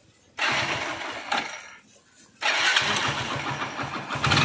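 Hero Splendor Plus motorcycle's single-cylinder four-stroke engine being started: a first try about half a second in runs for a second and a half and stops, then a second try catches about two and a half seconds in and the engine keeps running. The mechanic says this engine makes far too much noise.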